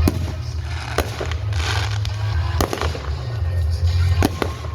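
Fireworks going off: four sharp bangs spread across a few seconds, with a spell of crackling between the second and third, over a steady low rumble.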